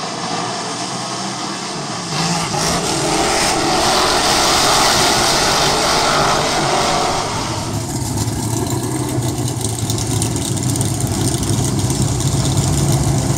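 Several dirt modified race car engines running on a dirt oval. About two seconds in the engine noise swells and revs as the pack comes around. About eight seconds in it changes to a lower, steadier engine sound of modifieds rolling slowly close by.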